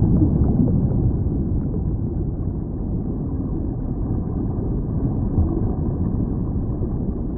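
A low, steady, muffled rumble with nothing high in it, fading slightly in level over the seconds.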